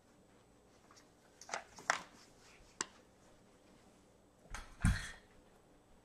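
Handling noise as puppies are moved: a few short rustles and a sharp click, then a louder scuffle with a thump about five seconds in.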